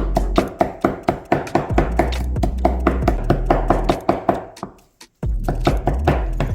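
Knife chopping on a cutting board in quick, regular strokes, about four a second, over background music; everything stops briefly about five seconds in, then resumes.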